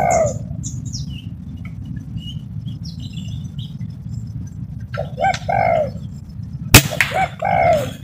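Spotted doves cooing, a phrase of two short notes and a longer falling note repeated, over a steady low rumble. About three-quarters of the way through there is a single sharp crack from the air rifle firing.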